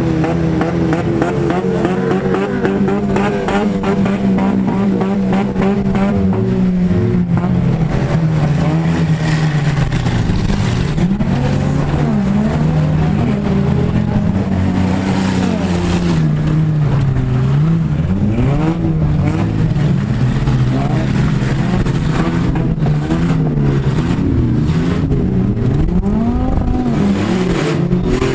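Compact-car engines in a demolition derby heat, several at once, revving up and down over and over as the cars accelerate, back up and turn.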